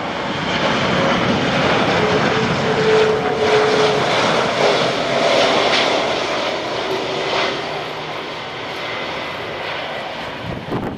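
A Boeing 747-400 freighter's four turbofan engines roar loudly as it passes low on final approach with its landing gear down, a whine riding on the rumble. The sound swells to its loudest a few seconds in, then eases as the jet moves away over the runway, the whine dropping slightly in pitch.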